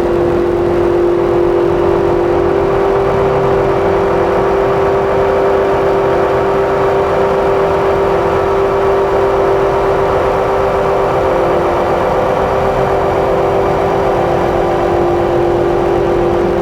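Electronic drone from a Make Noise Strega synthesizer layered with a Meng Qi Wingie and looped drone layers through delay and reverb. A few steady held tones sit over a grainy, hissing texture, with no beat and no change in loudness.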